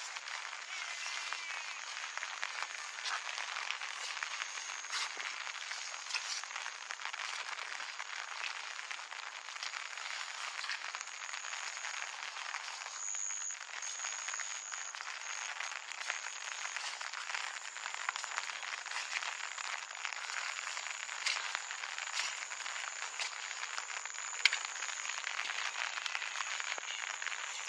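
Steady rain falling, a dense crackling patter of drops, with one sharper tap near the end.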